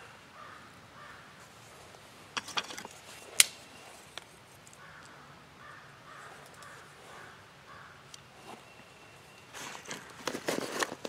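Crows cawing faintly in two runs of repeated caws. A single sharp snap about three and a half seconds in is the loudest sound, and a cluster of knocks and crackles comes near the end.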